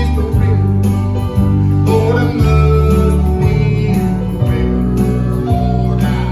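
Country gospel music: guitar over a bass line that changes note about twice a second, with singing.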